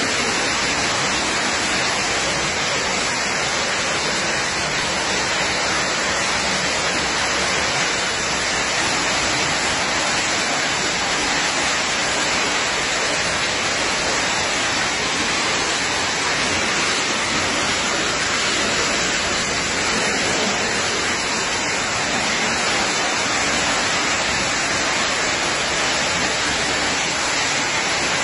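Rainwater pouring steadily through a broken suspended ceiling and splashing down, a continuous even rush of water.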